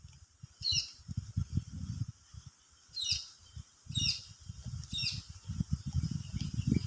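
Cats chewing and tearing at raw fish close to the microphone: irregular bursts of low, wet crunching with short pauses between them. A bird chirps four times in the background, each chirp short and falling.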